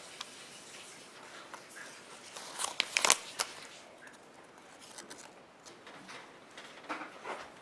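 Handling noises from the opened Kinder Surprise egg's contents: a quick cluster of sharp crinkles and clicks about three seconds in, and a few softer ones near the end.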